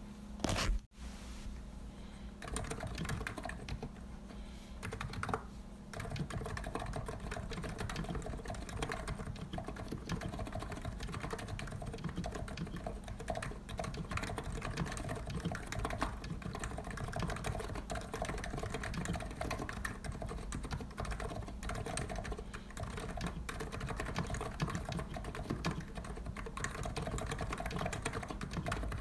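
COX Empress electro-capacitive (contactless) keyboard with 50 g key weight being typed on fast and continuously, a dense run of soft keystrokes. A brief loud thump comes about half a second in, before the typing picks up at around two and a half seconds.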